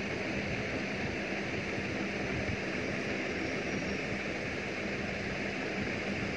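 Steady rushing noise with a faint low hum, unchanging throughout.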